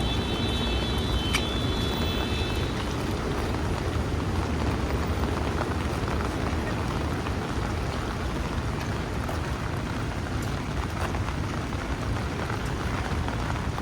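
Steady rain on a city street mixed with the low rumble of traffic. In the first few seconds a high, steady squeal sounds and then stops, with a single sharp tick under it.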